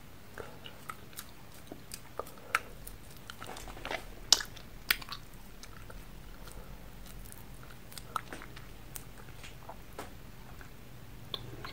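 Mouth sounds of someone sucking and crunching a pressed ramune-type candy: irregular small wet clicks and crunches, a few louder ones about four to five seconds in.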